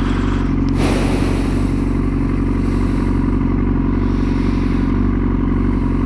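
Yamaha R6 inline-four engine idling steadily, with no revving, heard from the rider's position over a steady rush of noise that comes up about a second in.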